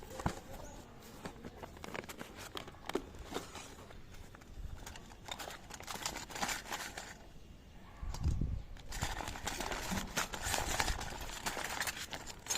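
Small toy kitchen pieces and their packaging being handled: scattered light clicks and taps, stretches of rustling, and a dull thump about eight seconds in.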